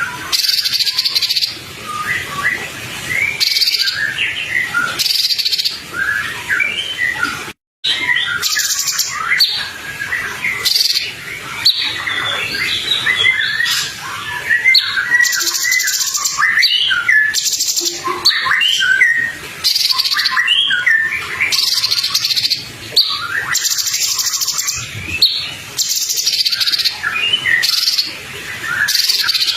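Songbird masteran recording: dense, quick chirping and whistled phrases, overlaid every couple of seconds by buzzy, hissing bursts about a second long. The sound cuts out for an instant about eight seconds in.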